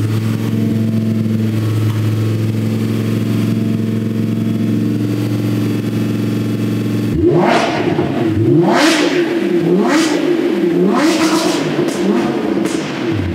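Lamborghini Huracán's V10 running through a catless Fi Exhaust valvetronic system, idling steadily, then from about seven seconds in revved hard several times, the pitch climbing and dropping with each blip.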